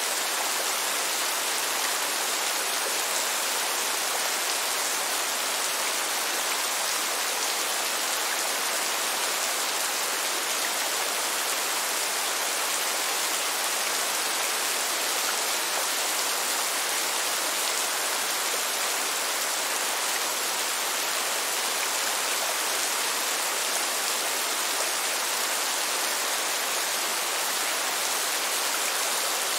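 Steady rain falling, an even, unbroken hiss with no single drops or thunder standing out.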